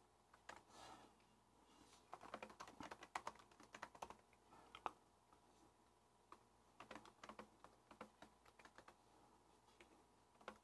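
Faint typing on a computer keyboard: quick runs of key clicks starting about two seconds in and again from about seven seconds, with a short pause between.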